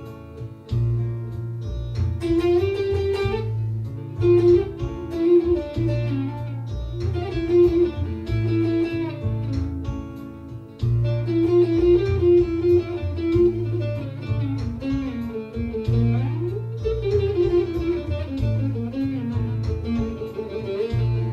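Bağlama (Turkish long-necked lute) improvising a plucked melody in the Hicaz makam, with quick runs and sliding notes, over sustained low bass notes that change every second or two.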